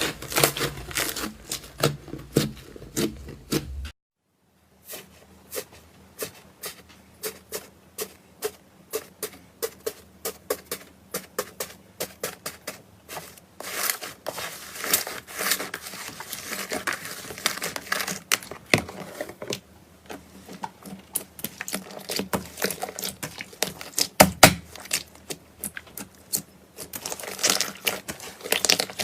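Slime being squeezed, poked and stretched by hand, giving quick runs of sticky clicks and crackles. The sound breaks off briefly about four seconds in, then carries on.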